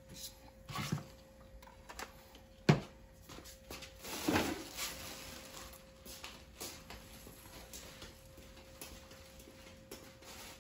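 Handling noise as a camera is picked up and carried: scattered knocks and rubbing, one sharp knock about two and a half seconds in and a brief rustle around four seconds in, over a faint steady hum.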